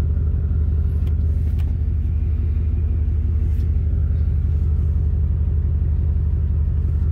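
Steady low rumble inside a 2007 Chevy Silverado 1500's cab: the engine idling and the freshly replaced blower motor pushing air out of the dashboard defrost vents, a sign that the blower now works.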